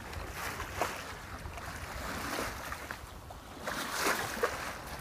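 Water rushing and splashing along the hull of a sailboat moving under sail, in uneven swishes, with some wind noise on the microphone.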